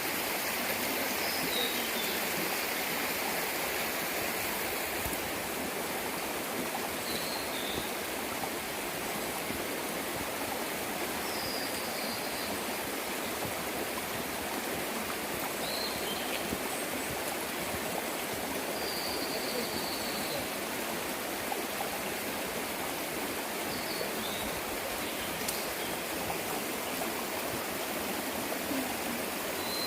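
Mountain stream running over rocks with a steady rush of water, and a bird giving short high calls now and then, one of them drawn out a little longer about two-thirds of the way through.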